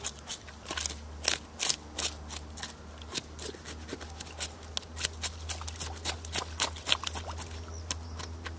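A fish being scaled by hand: quick, irregular scraping strokes, several a second, as the scales are scraped off.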